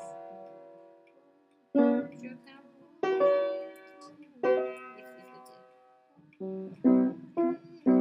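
Chords struck on a keyboard one at a time, each ringing and dying away, while a G7 chord is tried out for a song's accompaniment. Three chords come about a second and a half apart, then a quicker run of short chords near the end.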